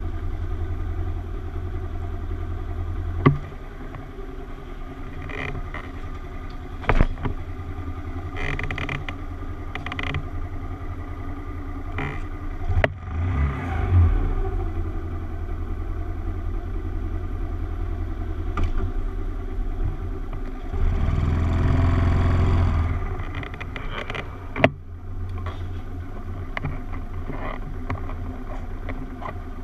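Small motorcycle engine running at low speed while the bike rolls slowly, a steady low hum broken by a few sharp clicks. The engine grows louder for a couple of seconds about two-thirds of the way through.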